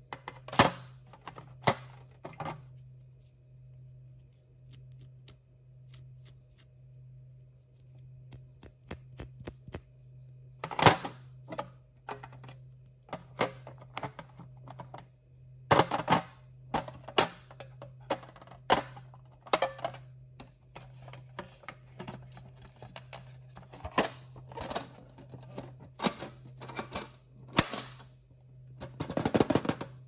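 Small plastic toy figures clicking and tapping against a metal tin tray as they are handled and set down: irregular sharp clicks, a few louder knocks, and a longer clatter near the end.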